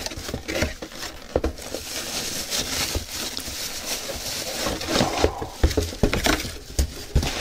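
Cardboard box flaps and packing being handled and pulled open, with plastic wrapping rustling and crinkling and a few light knocks of cardboard.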